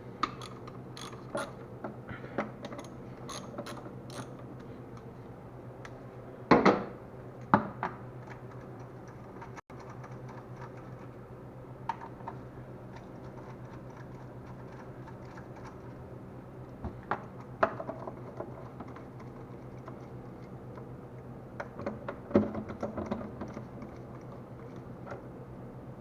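A 10 mm socket ratchet clicking in quick runs as screws are backed out of an engine cover, with a few separate knocks of tools and parts, over a steady low hum.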